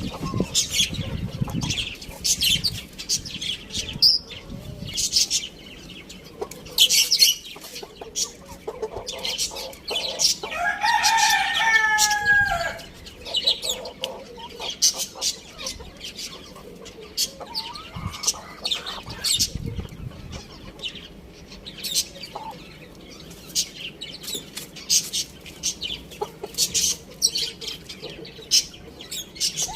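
A rooster crows once, a single call of about two seconds falling in pitch, about ten seconds in. Hens cluck around it, along with many short, sharp, high-pitched sounds and rustling.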